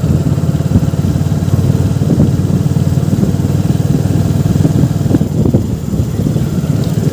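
Hero Glamour 125 motorcycle's single-cylinder engine running steadily while under way.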